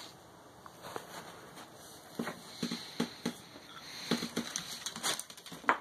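Irregular short, soft taps and scuffles, more frequent in the second half, from pet chinchillas moving about in their pen.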